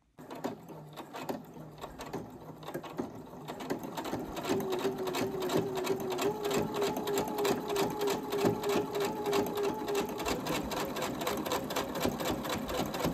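Singer electric sewing machine stitching lace trim onto heavy cardstock: a rapid, even run of needle strokes that picks up speed and gets louder about four seconds in, with a steady motor hum through the middle stretch.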